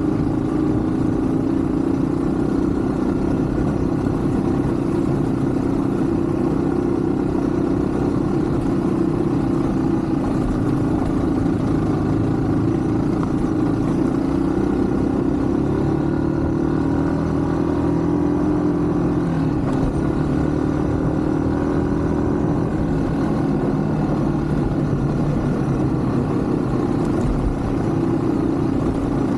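Yamaha WR155 single-cylinder motorcycle engine running under way at fairly steady revs, its pitch shifting a little about two-thirds of the way through.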